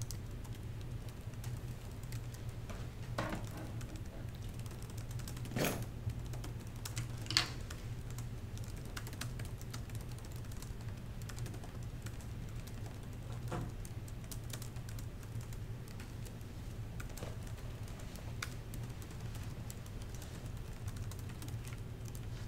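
Laptop keyboard typing, a steady patter of key clicks with a few louder knocks, over a steady low hum.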